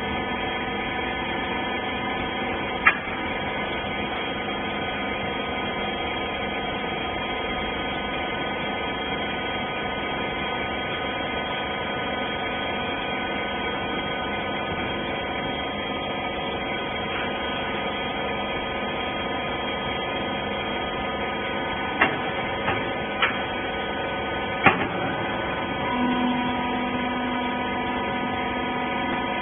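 Wiper-rag bagging baler running with a steady mechanical hum, with a few sharp clicks about 3 seconds in and again near the end, and a low steady tone joining shortly before the end.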